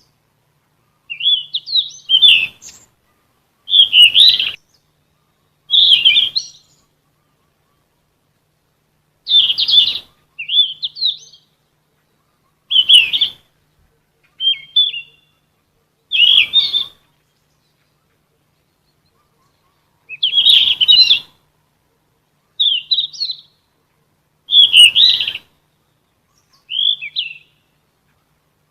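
Sikatan emas, a Ficedula flycatcher, singing short, quick warbling phrases, about a dozen of them, each under a second, with pauses of one to three seconds between.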